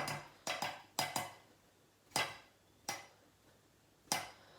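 A spoon knocking and scraping against a container, a series of short, irregular clinks with quiet gaps between them.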